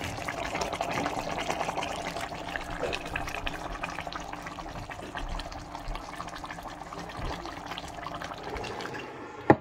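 Pot of egusi soup simmering, a steady bubbling and crackling that slowly fades, with one sharp click near the end.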